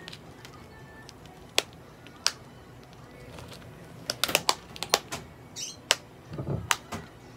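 Clear plastic Elizabethan collar being fastened around a cat's neck: sharp clicks as its press-stud fasteners snap shut and the stiff plastic flexes. There are a couple of single clicks, then a quick cluster of them about four seconds in.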